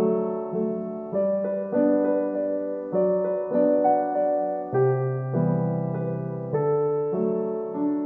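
Background piano music: a slow piece of held chords and melody notes, with a new note or chord struck about every half second to a second.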